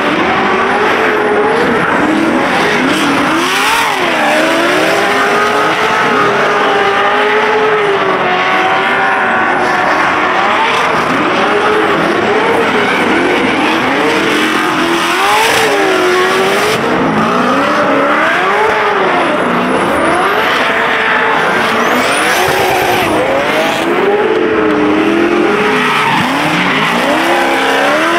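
Several drift cars sliding together, their engines revving up and down constantly, with tires squealing. The sound is loud and never lets up.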